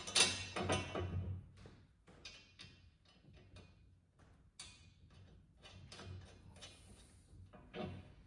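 Background music, with irregular light clicks and taps of metal hardware being handled and fastened on a plow blade bracket.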